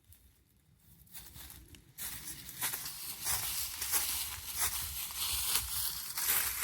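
Dry leaves and brush crunching and rustling in a dense, irregular crackle, starting about two seconds in.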